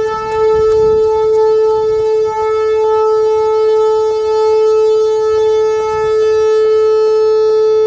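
Whelen outdoor warning siren sounding one loud, steady tone of about 435 Hz that does not rise or fall.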